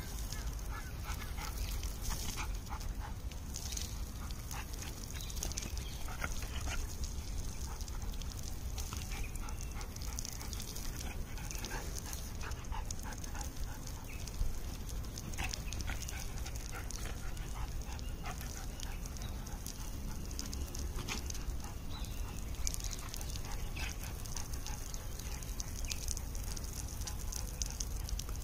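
A golden retriever making short, scattered sounds over a steady low rumble and a faint high hiss.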